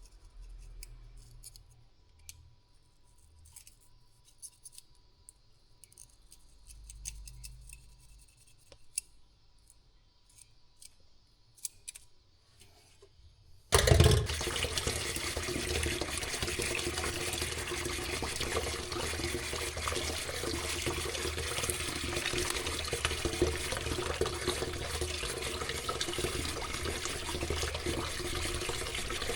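Scattered small clicks and handling sounds, then about halfway through a tap is turned on suddenly and water runs steadily into a sink.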